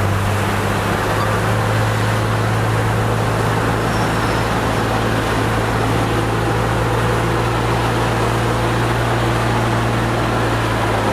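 Bulldozer's diesel engine running at a steady, unchanging pitch, with a deep hum.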